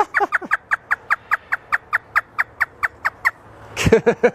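African grey parrot imitating a hysterical laugh: a fast, even run of about sixteen short notes, each dropping in pitch, some five a second. It breaks off after about three seconds, and a few louder notes follow near the end.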